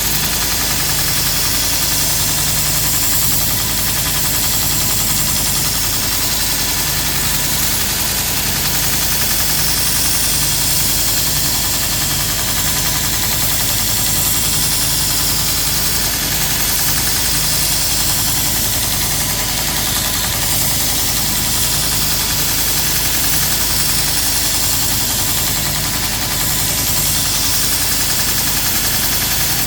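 Grizzly 2x42 belt grinder running while a steel lopper blade is ground on the slack part of its abrasive belt: a steady motor hum under a constant bright grinding hiss.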